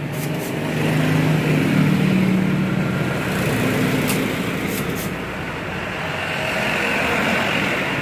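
Passing road traffic: a motor vehicle's engine drone swells and fades, then swells again near the end. A few sharp clicks sound over it.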